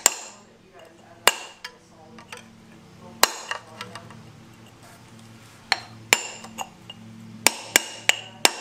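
Hammer striking a steel punch set against a rusted intake-manifold bolt on a Mercruiser 302 V8, each blow a sharp ringing metal clink, driving the seized bolt round in the loosening direction. About a dozen strikes, spaced out at first and coming faster near the end.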